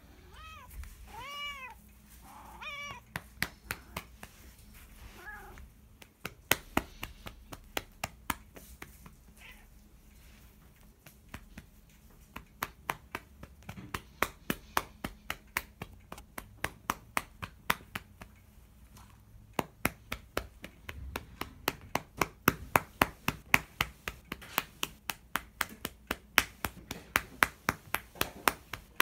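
A cat meows about three times, then a hand pats and spanks the cat's rump over and over in a quick, steady rhythm of roughly two to three slaps a second, the slaps growing denser and louder in the second half.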